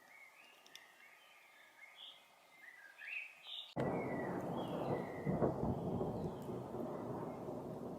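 A songbird calling in short chirps, then a little under four seconds in a loud rumble of thunder cuts in suddenly and goes on under the bird calls.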